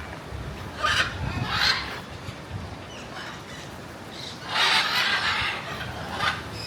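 Parrots squawking: a couple of short, harsh squawks about a second in, then a longer, rough squawk around the middle.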